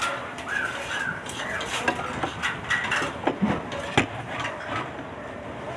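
Tableware clinking and knocking on a table: several sharp knocks and clicks between about two and four seconds in, the last of them the loudest.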